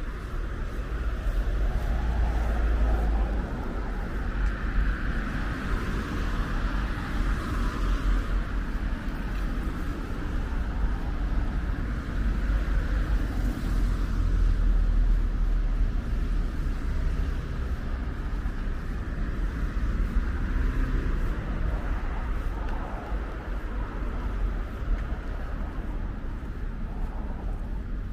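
Street ambience: road traffic running steadily, with a strong, fluttering low rumble underneath.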